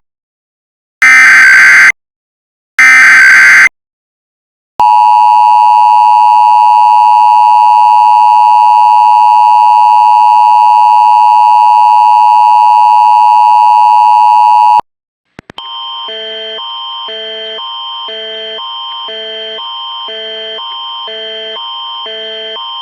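Emergency Alert System tones: the last two of three loud header data bursts, each about a second long with a second's gap, then the steady two-tone attention signal held for about ten seconds. After a short break a quieter tone follows, alternating between two pitches in a steady rhythm.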